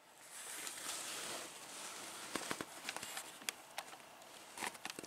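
Faint ambience heard through an open, screened window: a soft hiss, then scattered light clicks and taps from about two seconds in.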